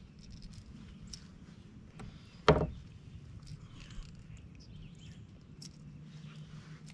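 A single sharp knock on the plastic kayak about two and a half seconds in, over faint clicks and rustles of a bass and its lure being handled.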